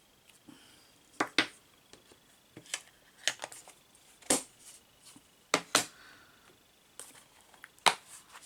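Scattered sharp clicks and taps of hand-stamping at a craft desk: a clear stamp on its acrylic block being inked and pressed onto card, with tools set down between the presses.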